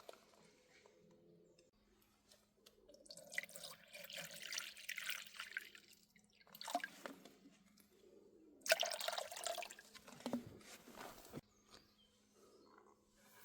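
Hot water poured in two pours of about three seconds each, trickling and dripping through coffee in a drip filter, over a faint steady hum.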